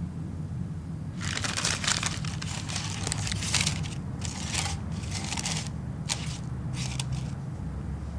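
Baking paper crinkling and rustling as it is pressed and folded into a metal loaf pan. It comes in a run of bursts starting about a second in, with a few short separate crinkles near the end.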